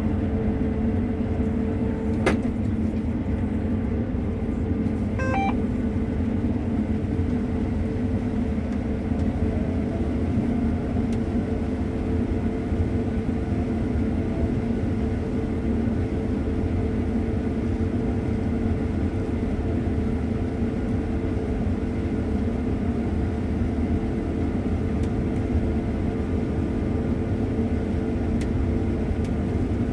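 Combine harvester running steadily while cutting soybeans: a continuous machine drone with a steady hum. There is a brief click about two seconds in and a few short faint tones a few seconds later.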